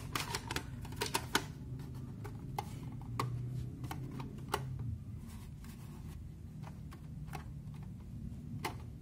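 Scattered clicks and light knocks of hands handling a small metal-cased DVR recorder with its cover just fitted. The clicks come thickest in the first second and a half and again around three to five seconds in, thinning out later, over a low steady hum.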